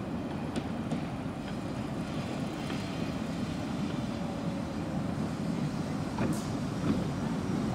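Vintage PCC tram running toward the listener on its track, the rolling rumble slowly growing louder as it nears, with a few short sharp clicks.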